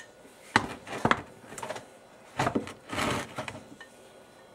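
Metal knocks and scrapes as the upper case half of a Dana 4360 lawn tractor transaxle is lifted off its gear train and set aside: about six separate clunks, with a longer scrape about three seconds in.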